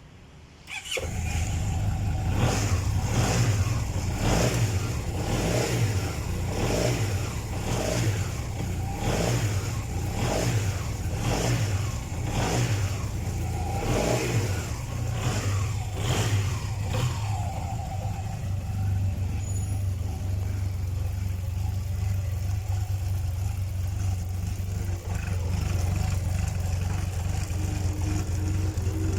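SYM Maxsym scooter engine starting up about a second in, then revved repeatedly in quick, regular blips, about one a second, before settling to a steady idle in the second half.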